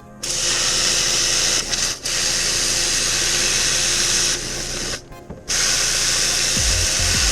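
A power tool running in long bursts: a loud, steady, hissing whir that stops for about half a second near the middle, then starts again.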